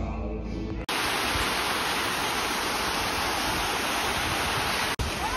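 Music for about the first second, then a sudden cut to water cascading down a rock waterfall: a steady, loud rush of falling water.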